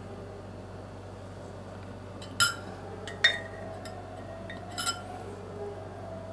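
Steel knife and fork clinking against a bowl while cutting up food: three sharp clinks a second or so apart, the second the loudest and the last one doubled. A low, steady hum runs underneath.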